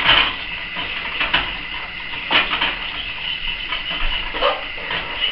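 A fork stirring and scraping against a stainless steel saucepan as milk is worked into a thick butter-and-flour roux. The scraping is irregular, with sharper strokes about a second in, just over two seconds in and near the end.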